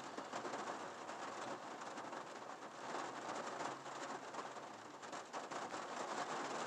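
Rain falling on the roof and windshield of a parked truck, heard from inside the cab: a steady rush made of many small drop hits.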